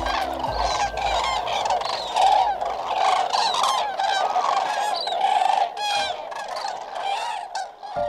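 Flock of common cranes calling: a dense chorus of many overlapping honking calls, thinning slightly near the end.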